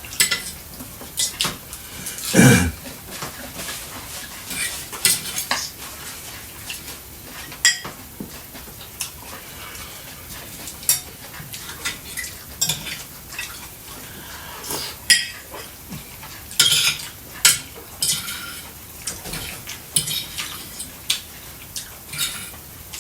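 Dishes and cutlery clinking and knocking, with irregular sharp clicks of metal and crockery being handled.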